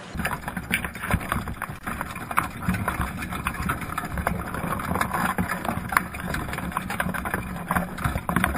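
Underwater sound inside a wire crab pot full of Dungeness crabs, recorded by a GoPro in its waterproof housing: dense, irregular clicking and knocking of shells and legs against each other and the mesh, over a steady low hum.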